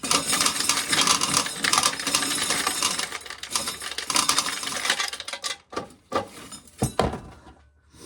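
Dry corn being shelled off the cob, the kernels rattling and clattering down into a container in a dense stream for about five seconds, then only a few scattered clicks.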